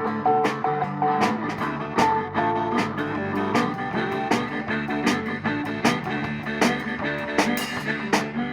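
Blues-rock music with guitar over a steady beat of roughly two hits a second.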